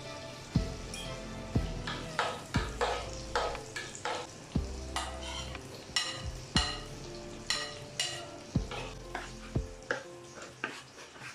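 Whole cinnamon and green cardamom frying in hot ghee and butter in a nonstick pan, sizzling with sharp pops and crackles one or two a second. Raisins are added and a wooden spatula stirs the pan. Soft background music plays underneath.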